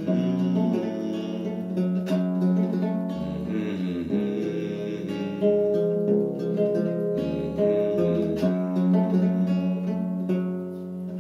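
Classical guitar played solo, picked and strummed chords ringing one into the next, with no voice.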